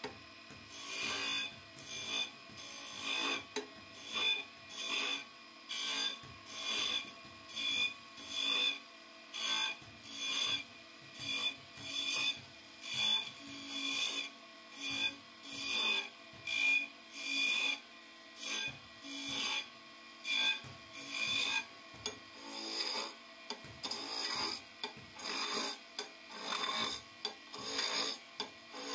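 Skew chisel cutting a spinning wooden spindle on a wood lathe: short, repeated scraping cuts, a little more than one a second, each with a thin high whine from the tool edge on the wood.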